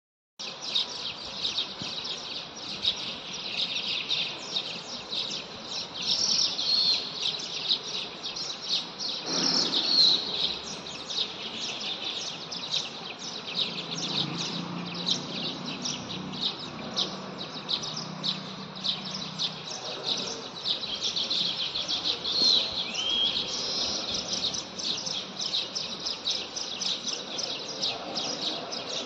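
Birds at a nest chirping in a rapid, unbroken stream of short high-pitched chirps, several a second. A brief knock about nine seconds in.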